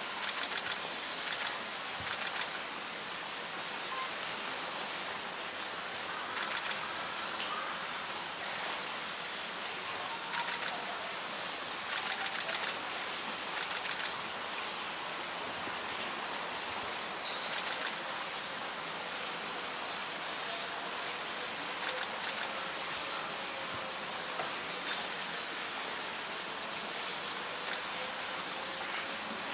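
Steady rushing noise like running water, with short bursts of rapid clicking every few seconds.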